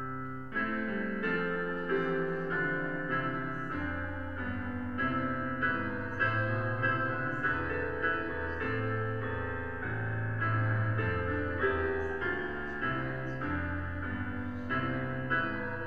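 Piano playing a slow, quiet piece of held chords under a melody line, the notes changing about once a second.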